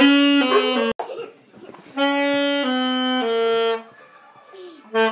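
Saxophone playing slow, held notes in two short phrases, the first cut off abruptly about a second in. A dog howls faintly along in the gaps between phrases.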